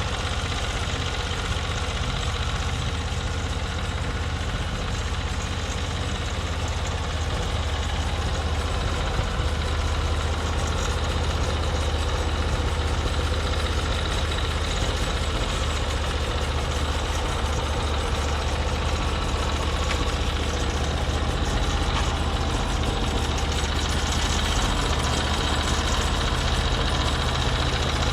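Gasoline engine of a Norwood MX34 portable bandsaw mill running steadily.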